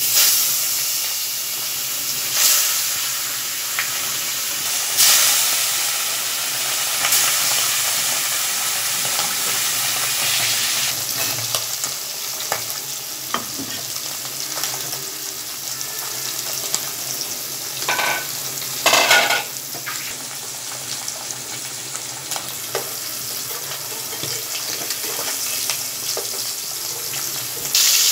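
Fish pieces sizzling as they fry in hot oil in a wok. The sizzle surges at the start and again about every two to three seconds early on as further pieces go into the oil, then settles to a steady hiss. Two brief sharper sounds come about two-thirds through, and the sizzle jumps louder near the end as a spatula turns the fish.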